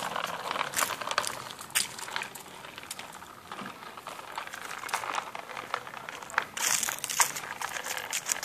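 Irregular crackling and crunching of a child's bicycle and its plastic training wheels rolling over asphalt strewn with dry fallen leaves, with a louder spell of crunching toward the end.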